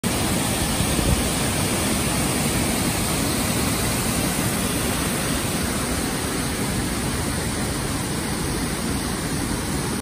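Rain-swollen waterfall and cascading white water pouring over granite ledges: a steady, even rush of water.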